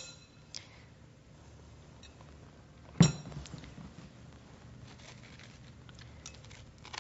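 Spoon scraping seeds and pulp out of a halved acorn squash: faint scrapes and small clicks, with one sharp knock about three seconds in.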